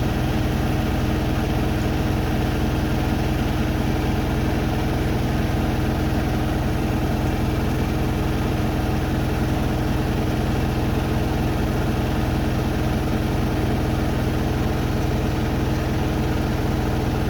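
Hoover Nextra Iconic and Beko WDER front-loading washing machines on their final spin, the drums turning fast with a steady, unchanging hum.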